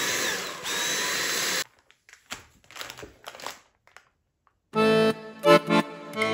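Dyson cordless vacuum running with a steady high whine as it sucks the air out of a Ziploc bag, then cutting off after about a second and a half. Brief crinkling of the plastic bag follows, and accordion music starts about three-quarters of the way through.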